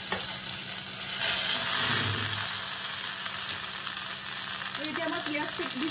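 Mustard seeds and curry leaves sizzling in hot oil in a wok, the sizzle growing louder about a second in.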